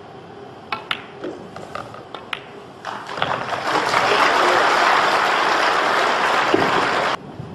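Pool balls clicking against each other and the cushions during a shot, then audience applause starting about three seconds in, the loudest sound here, which cuts off suddenly near the end.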